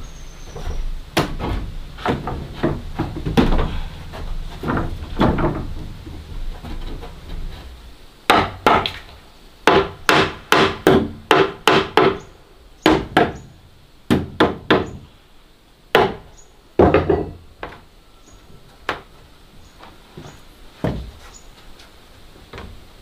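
Wooden boards knocking and shifting against a timber frame, then from about eight seconds in a run of sharp hammer blows on wood, about two a second, thinning to scattered knocks near the end.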